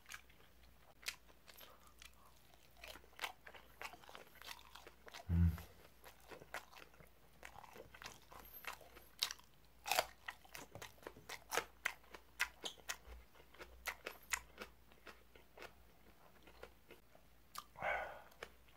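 Close-up chewing and crunching of a raw green chili pepper: an irregular run of crisp bites and crunches. A single loud low thump about five seconds in, and a short vocal sound near the end.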